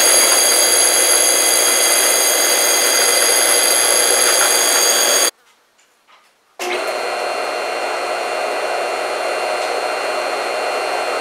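Hayward 2 hp pool pump motor running with a high-pitched whine from its worn bearings, the motor running hot. About five seconds in it breaks off, and then the same motor, rebuilt with new bearings, runs on the bench with a steadier, somewhat quieter hum and much less whine.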